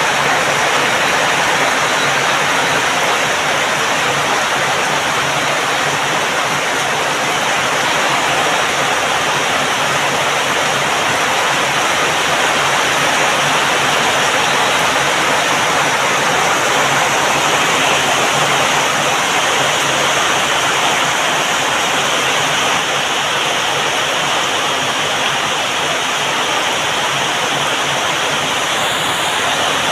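Heavy tropical rain pouring steadily, a dense, even hiss of water with no single drops or thunder standing out.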